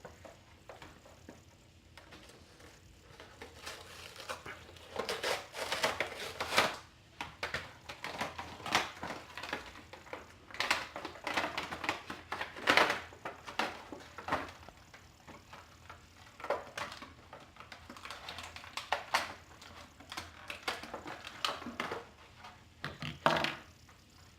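Toy packaging of cardboard and plastic blister being torn open and handled, in irregular bursts of tearing, crinkling and scraping.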